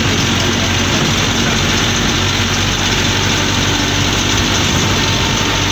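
Safari bus engine running steadily while the bus drives along, heard from inside the cab as a constant low drone with a steady wash of noise.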